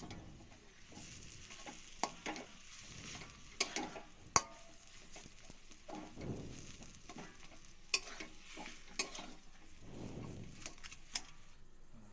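Spatula stirring a mashed potato and cauliflower filling in a kadai over a faint sizzle, with a few sharp knocks of the spatula against the pan, the loudest about four seconds in.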